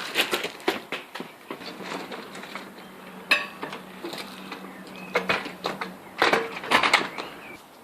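A scatter of light clicks and knocks, like hard objects being handled and set down, with one louder knock about three seconds in.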